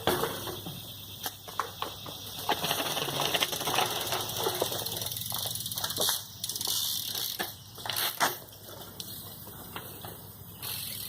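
BMX bike being ridden through a trick attempt: tyres rolling with a steady rushing noise, broken by repeated sharp clicks and knocks from the bike and its landing.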